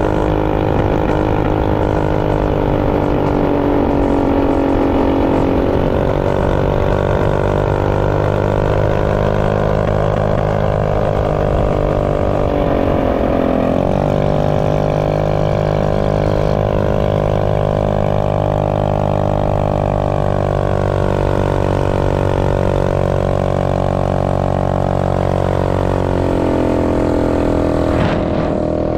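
Predator Ghost 212cc single-cylinder engine on a Trail Master minibike running, its pitch slowly rising and falling with the throttle, with a brief dip and climb about halfway through.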